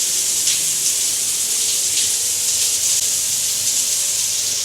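Overhead rain showerhead running, water pouring down in a steady hiss.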